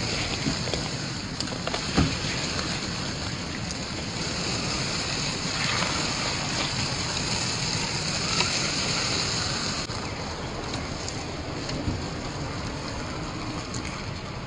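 Steady rush of a creek's running water, with a few sharp clicks, the loudest about two seconds in.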